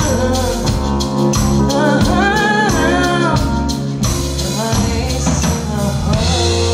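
Live band playing a soul-rock song: a woman sings long, sliding notes without clear words over drum kit, bass, keys, electric guitar and hand percussion.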